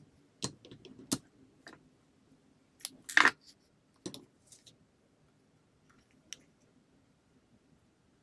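Scattered clicks and knocks of small parts and tools being handled, with one louder, longer scrape-like clatter about three seconds in.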